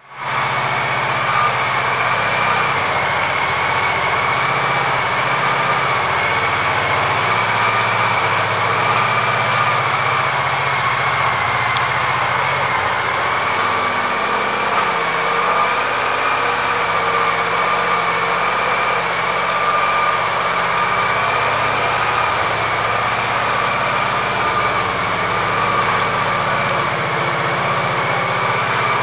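1996 Honda Pacific Coast's liquid-cooled V-twin idling steadily, its even running unchanged throughout.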